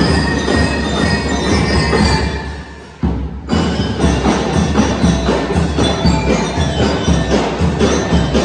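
Drum and lyre band playing: bell lyres ringing over marching drums. The music fades down and breaks off about three seconds in, and the drumming with bell lyres starts up again about half a second later at a quick, steady beat.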